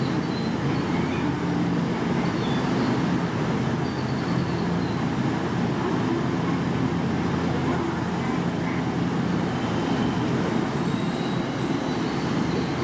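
JR West 227 series electric train, a steady low rumble and hum with a few faint higher tones.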